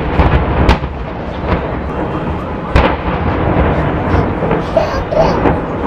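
A series of loud blasts: one hits as the sound opens, with more sharp bangs about a second and about three seconds in, over a continuous crackling rumble.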